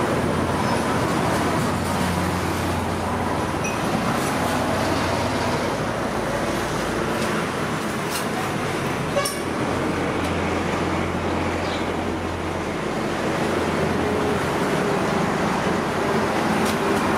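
Steady road traffic noise, with a low engine hum that comes and goes and a single sharp click about nine seconds in.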